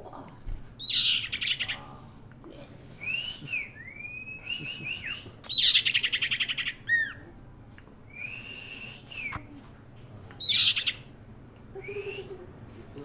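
Common iora (cipoh) singing: clear drawn-out and arching whistled notes, broken by bursts of fast rattling trills, the 'cetrekan' of a bird in full song. The longest and loudest rattle comes about halfway through.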